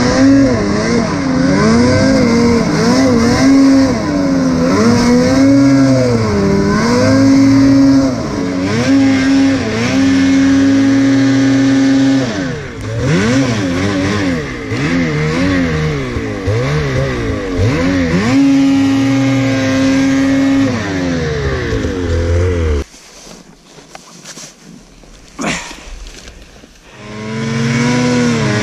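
Ski-Doo Freeride 850 snowmobile's two-stroke twin engine revving up and down over and over under throttle, with stretches held at steady high revs. Near the end the engine sound drops away for about four seconds, then picks back up.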